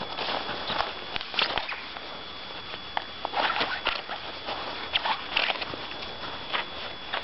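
Irregular crunching steps in thin snow as a terrier puppy scampers around a person's feet. The steps come in uneven clusters of short scuffs and clicks.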